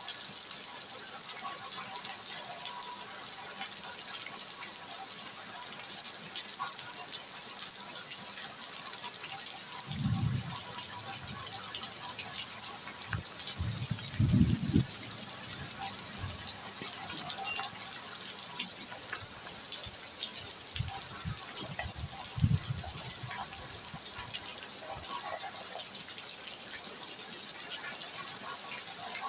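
Steady rain falling, a continuous hiss with scattered drip ticks. A few brief low thumps come about ten, fourteen and twenty-two seconds in, the ones around fourteen and twenty-two seconds the loudest.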